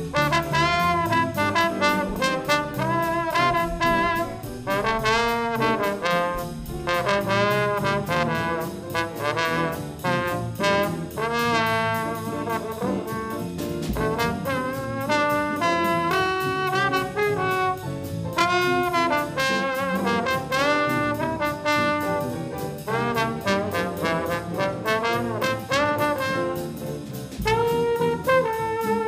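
Trombone playing a jazz solo line over a small combo's rhythm section of piano, bass, guitar and drums, with a steady cymbal pulse.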